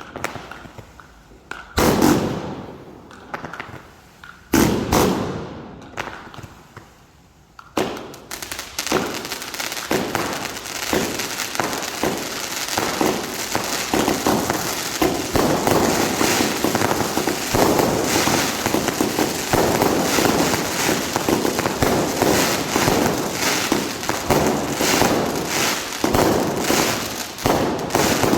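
F2 consumer fireworks going off: three single bangs about three seconds apart, then from about eight seconds in a dense, continuous run of rapid shots and crackle.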